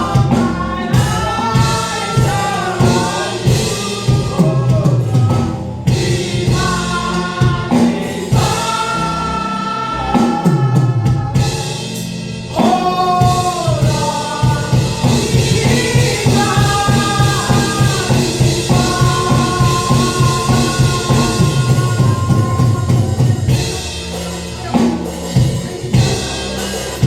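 Gospel worship music: voices singing a melody over a band with a steady drum beat.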